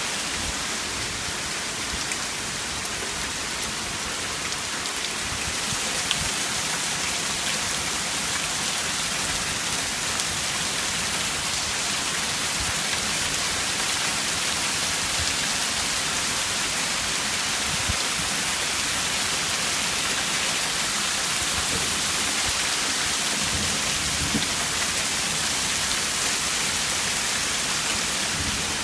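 Heavy rain pouring down steadily, a dense, even hiss of rain hitting surfaces, with a few faint sharp ticks.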